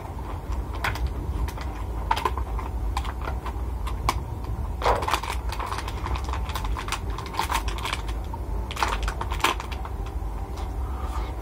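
Eating by hand from a clear plastic food box: irregular small clicks and crackles of the plastic being handled, with chewing, over a steady low hum.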